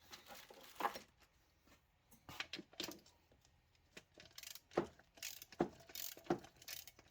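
Small metal parts and hand tools being handled: a scattered series of clinks, clicks and light knocks, a few sharper than the rest.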